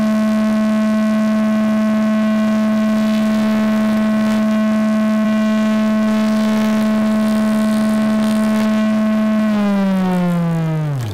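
Table saw running with a molding head cutter mounted, a steady, loud pitched hum while cutting a bead profile in a pine board. About 9.5 s in the saw is switched off and its pitch falls away as the cutter head spins down.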